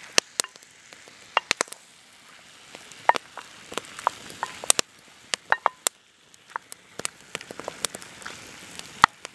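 Marinated lamb sizzling in a hot terracotta tagine over a campfire as it is stirred with a wooden spoon, with a soft hiss and frequent sharp, irregular pops and crackles.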